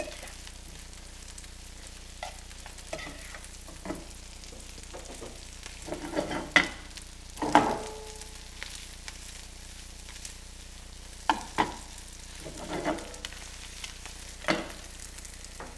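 A metal spoon stirring blue crab in a buttery pan sauce in a skillet, with irregular scrapes and clinks against the pan over a low, steady sizzle. The loudest clink comes about halfway through and rings briefly.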